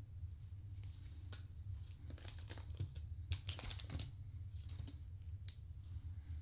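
Hand knitting: knitting needles clicking together and yarn and fabric rustling in the hands, busiest about two to four seconds in, over a steady low hum.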